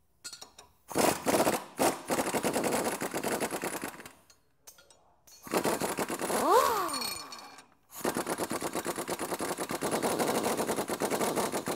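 Pneumatic impact wrench with an 18 mm socket hammering loose the upper control arm nut and bolt at a Jeep Wrangler JK's rear axle bracket. It runs in three long bursts of rapid hammering, and midway a falling whine follows one burst.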